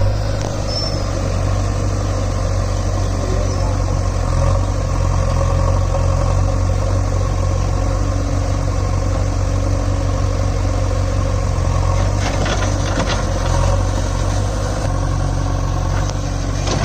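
Diesel engines of an HMT tractor and a JCB backhoe loader running steadily at low revs, with a few short knocks about twelve seconds in and again near the end.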